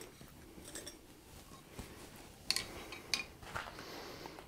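A few light metallic clinks and taps of twisted steel bars and baling wire being handled on an anvil. The two sharpest clinks come a little after halfway through.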